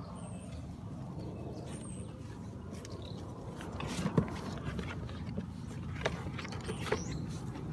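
Labrador puppies scuffling and rustling through dry leaves and grass, with scattered small clicks and one sharp knock about four seconds in, over a low steady rumble.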